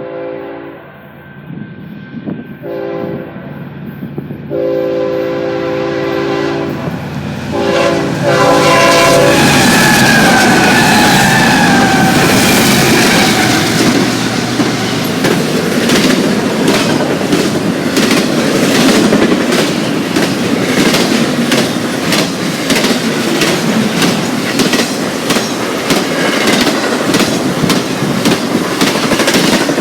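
An eastbound BNSF intermodal freight train led by GE ES44C4 diesel locomotives. The lead unit sounds its air horn in several chord blasts, the last about eight seconds in; the locomotives then pass close by with a loud rush. After that comes a steady clickety-clack of the cars' wheels over the rail joints.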